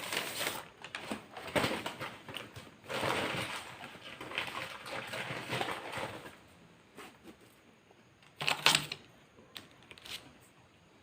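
Close-up eating sounds while working through McDonald's burgers: irregular crackling and rustling for about six seconds, then a few faint clicks and one short, louder crackle about eight and a half seconds in.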